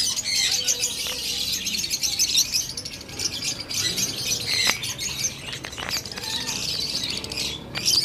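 A flock of caged budgerigars chattering, with a continuous stream of quick chirps and squawks.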